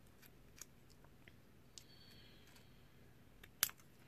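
Scissors cutting thin aluminium sheet from a drink can: a few faint clicks, then one sharp snip about three and a half seconds in.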